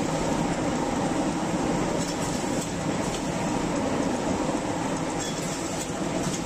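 Automatic BOPP tape-roll packing machine running: a steady mechanical rumble with a few faint light clicks.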